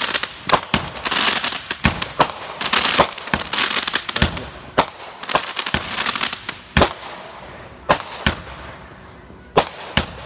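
Aerial fireworks going off overhead: a rapid string of sharp bangs from bursting shells with crackling between them, thinning out to scattered single bangs after about five seconds.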